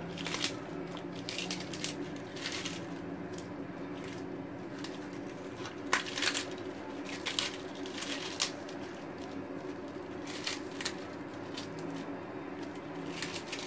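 Chinese cabbage leaves being dropped into a pot of hot broth: irregular soft splashes, leafy rustles and clicks, the loudest about six seconds in, over a steady low hum.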